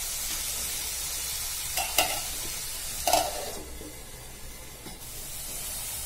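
Onion-and-tomato masala sizzling in a kadhai, with two metal clanks about two and three seconds in as the steel lid goes on, the second ringing briefly. The sizzle then turns quieter for a second or two under the lid and grows louder again near the end.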